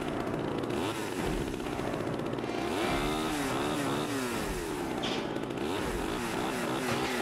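A small engine running and being revved up and down again and again, its pitch rising and falling about every half second.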